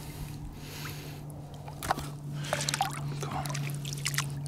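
Water sloshing, splashing and dripping as a caught carp is handled at the water's edge and let go, with busier splashing from about two seconds in, over a steady low hum.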